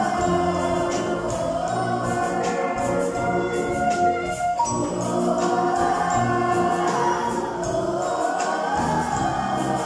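Children's choir singing a song together with band accompaniment; held notes, with a new phrase starting about halfway through.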